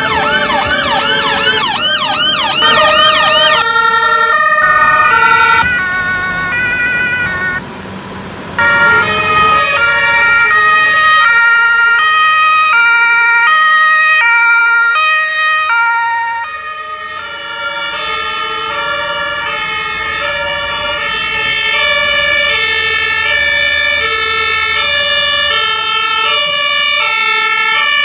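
Emergency vehicle sirens from ambulances and a fire engine driving off with blue lights. First comes a fast, repeating rising-and-falling wail. About four seconds in it gives way to the two-tone hi-lo horn of German rescue vehicles, and from about ten seconds several two-tone sirens sound at once, out of step with one another.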